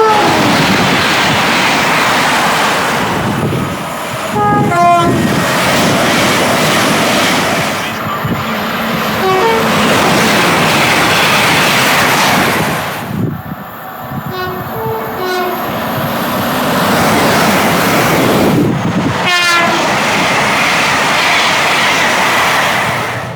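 Trains passing at speed, a loud continuous roar of wheels on rail, with short two-tone horn blasts sounding several times, each a higher note dropping to a lower one. The roar changes abruptly a few times as one passing train gives way to the next.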